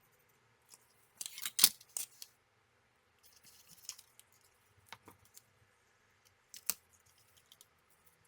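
Small tools clicking and scraping on a workbench during solder-pad cleanup, with a loud cluster of sharp clicks about a second in, then a few fainter scrapes and single clicks spread out after.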